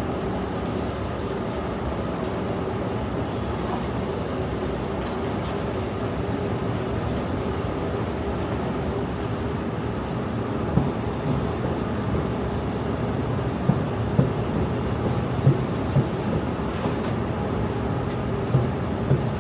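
London Underground train running with a steady rumble and a faint hum. From about halfway on, irregular sharp knocks and clatters come through.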